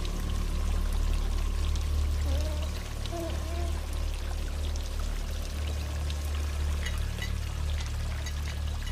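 Water pouring steadily into a flooded basement and splashing into standing water, with scattered drips and a deep low rumble underneath.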